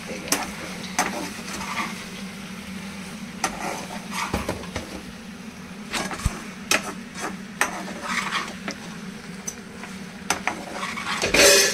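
Spatula stirring and scraping macaroni in a non-stick frying pan on a gas stove: irregular clinks and scrapes against the pan, over a steady low hum, with one louder scrape near the end.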